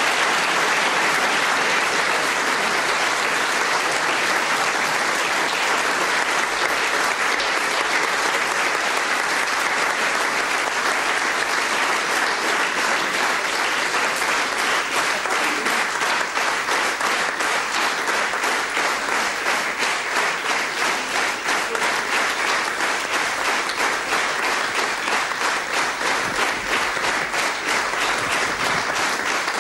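Theatre audience applauding loudly and steadily, the clapping settling into a regular, even rhythm toward the end.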